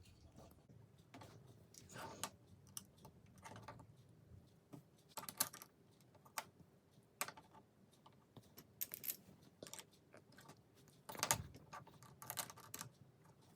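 Plastic LEGO bricks clicking and clattering at an irregular pace as pieces are picked up, sorted and pressed together, with a louder knock about two-thirds of the way through.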